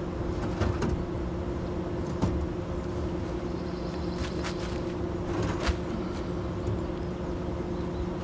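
Steady low mechanical hum, with a handful of sharp knocks and clicks over it.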